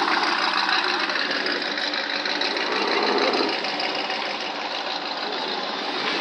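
A truck engine running steadily close by with a fast, even clatter.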